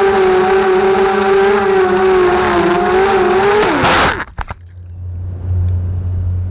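FPV racing quadcopter's motors and propellers whining at a steady, slightly wavering pitch in flight, heard from its onboard camera. About four seconds in the pitch bends and the drone crashes, with a few sharp clattering impacts as it tumbles, then only a low steady hum while it lies in the grass.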